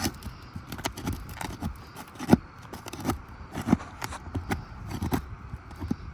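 Irregular clicks, taps and light scrapes of handling and stepping on asphalt roof shingles, with two louder knocks about two and three and a half seconds in.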